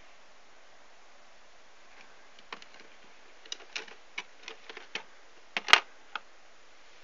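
A scatter of small, sharp clicks and taps, about a dozen at uneven intervals, the loudest a sharp knock about five and a half seconds in.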